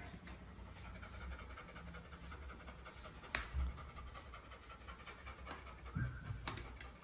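Golden retriever panting quickly and steadily. A light click sounds about halfway through and another near the end.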